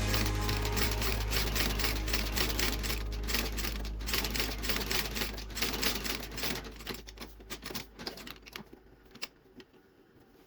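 Rapid, even mechanical clicking from a shoe-repair machine running over a steady low hum, fading away over the last few seconds.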